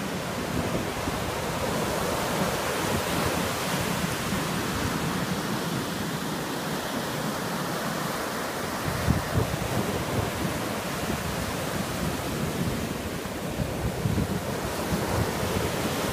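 Ocean surf breaking and washing up a sand beach, a steady wash of noise, with wind gusting on the microphone as a low rumble that swells about nine seconds in and again near the end.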